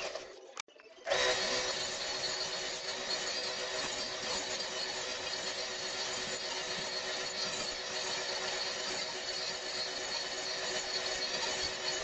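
Table saw running steadily, its motor holding one even pitch, after a brief dropout about half a second in.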